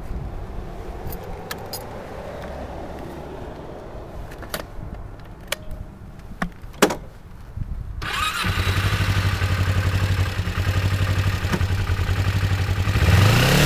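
Sharp clicks and knocks of handling for about eight seconds, then a Kawasaki Ninja 250's parallel-twin engine starts abruptly and idles steadily. Near the end the revs rise as the bike pulls away.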